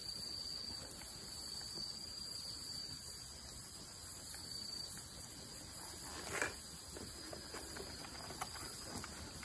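Insects trilling steadily in a thin, high tone over faint outdoor hiss, with a single soft knock about six seconds in.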